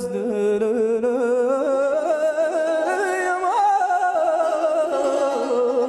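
Male Persian classical singer drawing out the last syllable of the verse in a long, ornamented melisma full of rapid trills. The line climbs for about three and a half seconds, then falls back down.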